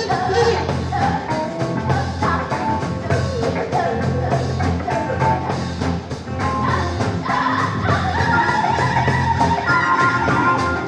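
Live improvised rock band playing: percussion keeps a steady beat under guitar and other instruments, with a singing voice. Several instruments hold long tones in the second half.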